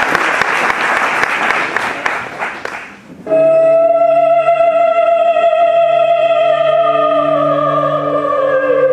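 Audience applause fading out, then about three seconds in the dance music begins: a long held note that slowly slides down in pitch over a steady low drone.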